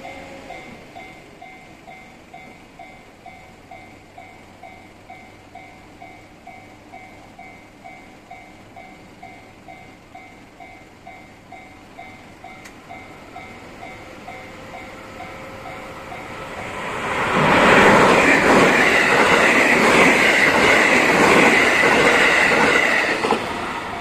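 Japanese level-crossing warning bell ringing steadily at about two strikes a second. After about sixteen seconds a JR West 207 series electric commuter train rises in and passes loudly for about six seconds, with a rhythmic clatter of its wheels, drowning out the bell before fading.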